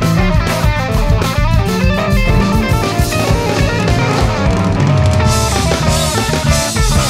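A band playing live: a Stratocaster-style electric guitar plays lead over drum kit and electric bass.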